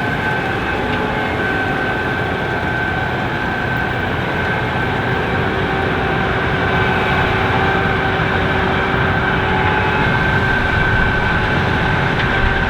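Challenger 560C combine running steadily while harvesting corn, with its 7-cylinder AGCO Power diesel engine. A steady high whine sits over the engine noise, and a lower steady tone joins about five seconds in.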